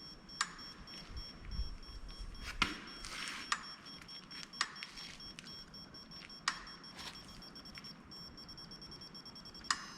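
Faint, scattered metallic clicks, about half a dozen, from a digital torque wrench and torque multiplier being slowly pulled on a bolt, over a faint steady high tone.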